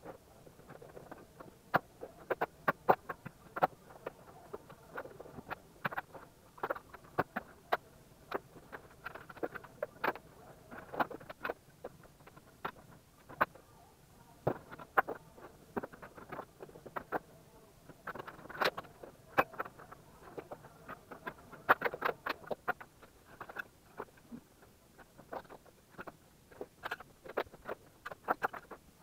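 Rapid, irregular clicks, knocks and rattles of cables and equipment being handled and pulled loose.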